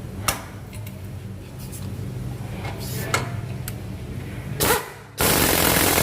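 A few sharp metal clinks of tools on the shock absorber mounting over a steady low hum. About five seconds in, an impact wrench starts up loudly, running the nut onto the shock absorber.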